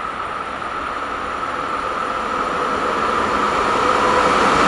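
HŽ series 1141 electric locomotive hauling a freight train of hopper wagons as it approaches: the wheels rumble on the rails over a steady electric whine, growing steadily louder.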